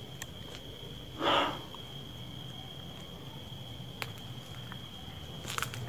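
A single short rushing noise about a second in, unexplained and marked as a 'strange noise', over a steady high-pitched whine and a low hum; a faint click follows near the end.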